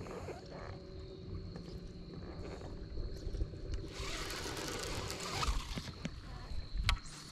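A baitcasting rod and reel being cast: the spool hisses for over a second as the line pays out, about four seconds in, and a sharp knock follows near the end. Under it is a steady low hum from the boat, the sort an electric trolling motor makes.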